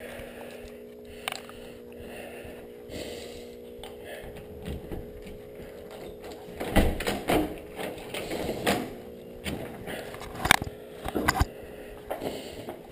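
Front door lock and handle being worked and the door opened, metal clicking and rattling over a steady low hum, then a run of knocks and clatters, the loudest about seven and ten and a half seconds in.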